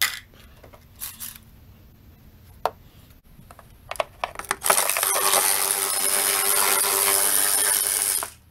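Parts being handled in a car's engine bay: a few sharp clicks, then about halfway in a loud continuous rattling noise that lasts about three and a half seconds and stops suddenly.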